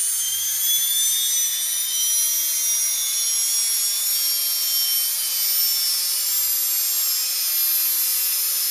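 Small brushless RC motor spooling up slowly under a Scorpion speed controller's soft-start setting: a high-pitched whine, several tones climbing steadily in pitch.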